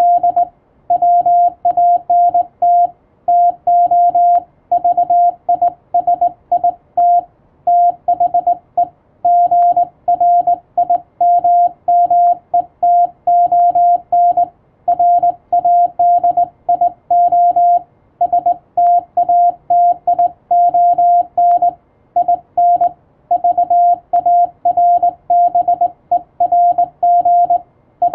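Morse code (CW) on an amateur radio set: a single steady beep keyed on and off in fast dots and dashes, with short gaps between characters and words, sent without a break.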